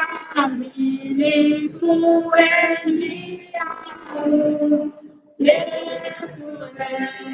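A group of mostly women's voices singing a song together, with a short pause between phrases about five seconds in.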